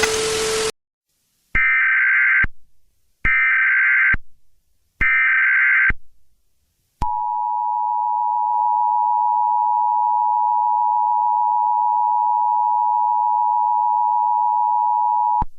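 Emergency Alert System signalling: a hiss cuts off under a second in, then three data bursts of about a second each come with short gaps between them. After that the steady two-tone attention signal holds for about eight seconds and cuts off.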